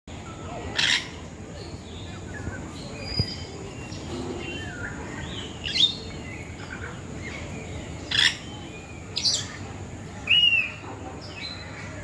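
Several birds chirping and calling in short, rising and falling notes, with five louder sharp calls standing out: one about a second in and four more in the second half.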